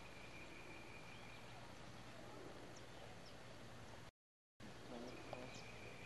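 Near silence: faint outdoor background of low hum and hiss with a few faint bird chirps. The sound drops out completely for about half a second around four seconds in, where the recording cuts.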